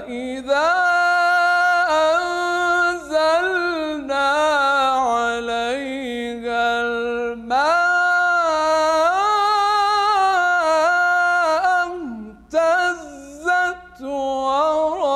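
A man chanting the Quran in melodic tajweed recitation: one unaccompanied voice holding long, ornamented notes that wind up and down in pitch. There is a breath pause about halfway, then a few shorter broken phrases near the end.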